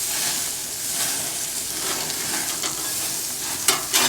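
Hamburger patties and steak sizzling on a hot grill, a steady hiss. Two sharp clicks near the end.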